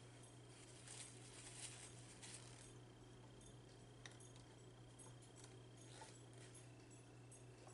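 Near silence: faint chewing and mouth sounds, soft clicks and wet smacks that come thickest in the first couple of seconds, over a steady low hum.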